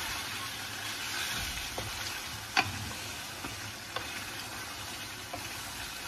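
Pork and chicken adobo with potatoes sizzling in a frying pan while a wooden spoon stirs it, with a few sharp knocks of the spoon against the pan, the loudest about two and a half seconds in.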